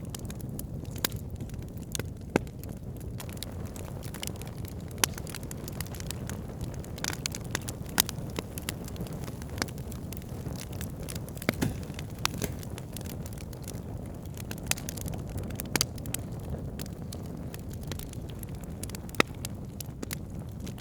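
Wood campfire burning, crackling and popping at irregular intervals over a steady low rumble, with a few sharper pops standing out.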